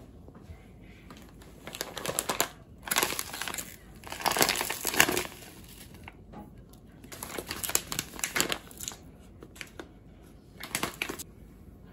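Large plastic pouches of powdered curry and sauce mix crinkling and rustling as they are picked up and handled, in several irregular bursts.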